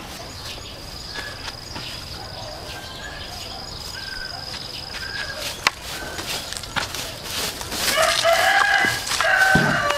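A rooster crows near the end, over scattered short bird chirps and a steady high-pitched whine that stops about halfway through; a single sharp click comes a little past the middle.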